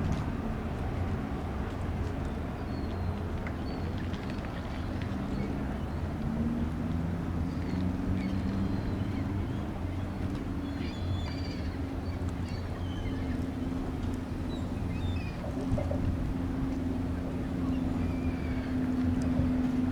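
Low steady rumble and droning hum of a passing ocean-going cargo ship, the hum slowly rising in pitch and growing louder near the end. Birds chirp briefly now and then.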